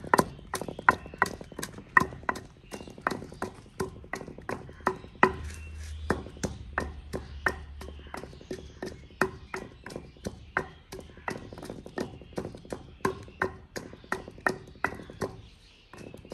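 Garlic being pounded in a kunda, a Punjabi mortar, with a pestle: steady, regular strikes about two to three a second, each with a short ringing knock.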